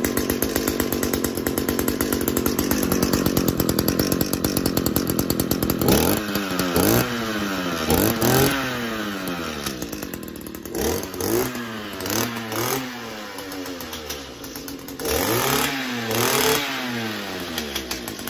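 Echo two-stroke string trimmer engine running after a cold start with the choke off. It holds a steady speed for about six seconds, then is revved up and down in a series of quick throttle blips. It starts and runs on its newly replaced primer bulb.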